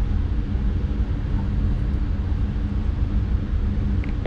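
Steady low rumble with a faint hum, the constant background noise of the room, with a small click near the end.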